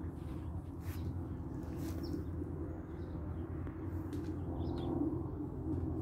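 Outdoor yard ambience: a steady low rumble with a few faint bird chirps now and then.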